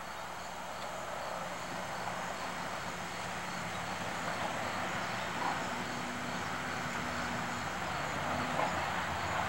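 Steady outdoor background noise, with faint high chirps repeating at an even pace, like insects, and a faint hum about two-thirds of the way through.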